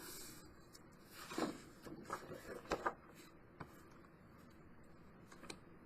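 Faint handling of cardstock and chipboard: a few soft rustles and light taps, clustered from about one and a half to three seconds in, with a couple more near the end.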